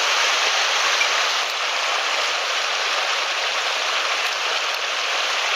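Running water of a small mountain headwater stream rushing over rocks and small falls, a steady hiss.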